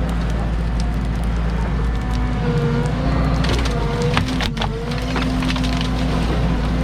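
Cat 313 excavator's diesel engine running steadily under hydraulic load, its whine shifting in pitch, with a cluster of wood cracking and splintering from about three and a half to five seconds in as brush and limbs are handled.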